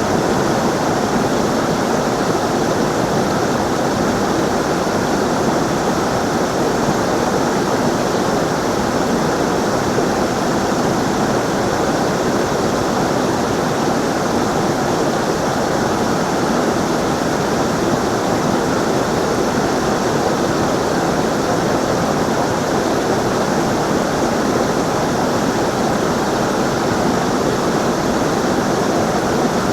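Running water rushing steadily, an even, unbroken flow with no change in level.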